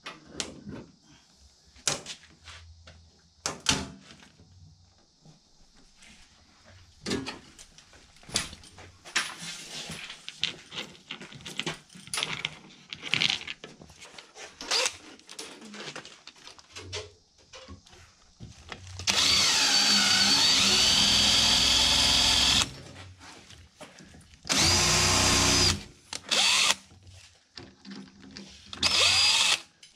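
Cordless DeWalt drill/driver driving screws through a plastic fitting into a furnace's sheet-metal cabinet. It runs in three bursts: a long one of about three and a half seconds whose pitch sags under load and recovers, a shorter one, and a brief one near the end. Before the drill starts, there are scattered clicks and knocks of parts being handled.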